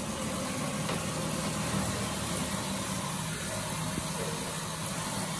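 Water running steadily from a handheld shower head into a plastic basin, the head held at and under the water surface so the flow sounds muffled, with a low steady hum.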